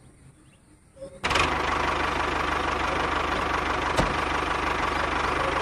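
A few small handling clicks, then about a second in a loud recorded tractor-engine idling sound switches on abruptly and runs steadily with a fast even chug, played by the toy Massey Ferguson tractor's sound feature. A single sharp click comes about four seconds in.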